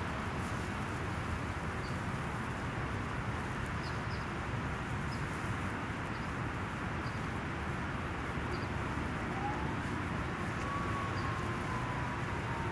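Steady outdoor background noise with no breaks, with faint short high chirps about once a second. In the second half a faint whine rises, holds and slowly falls away over several seconds.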